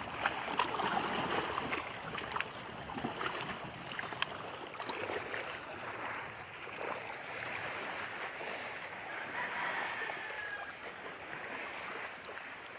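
Steady rushing outdoor ambience, a noisy haze with scattered small clicks and a faint brief whistle-like tone about ten seconds in.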